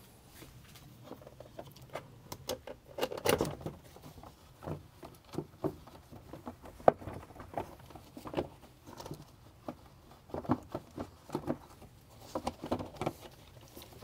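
Gloved hands handling a plastic car airbox and a drop-in panel air filter: irregular plastic clicks, taps and light scraping, with a louder cluster about three seconds in.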